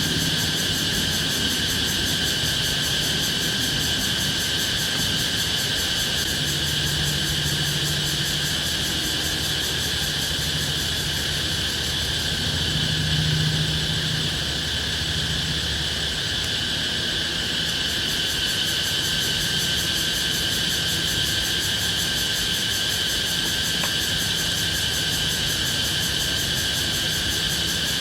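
Night insects in the forest keeping up a continuous, steady high-pitched chorus at two pitches. A low hum runs underneath and swells briefly about halfway through.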